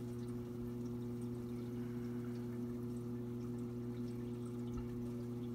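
Saltwater aquarium sump running: a steady pour of water over a constant low hum.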